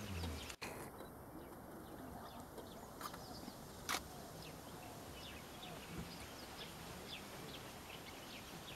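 Faint outdoor ambience of small birds chirping all through, many short high calls overlapping. Two sharp clicks come about three and four seconds in.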